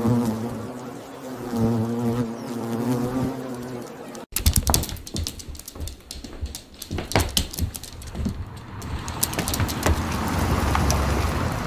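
A bumblebee buzzing, its pitch wavering, for about four seconds. After a sudden cut comes a run of sharp clicks and taps, then a low vehicle engine rumble that swells near the end.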